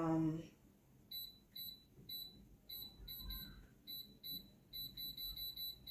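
Ganiza air fryer's touch control panel beeping at each tap as the cooking time is set: about a dozen short, high beeps, spaced about half a second apart at first and then coming in a quick run near the end.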